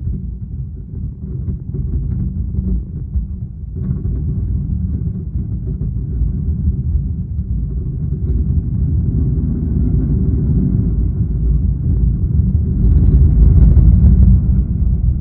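Fireworks display heard as a dense, continuous low rumble of overlapping bursts, loudest about thirteen seconds in.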